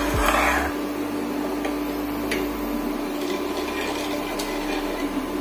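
White plastic spatula stirring a thickening milk and cornflour mixture in a non-stick pan, with a short scrape against the pan in the first second and a few faint taps after. A steady hum runs underneath.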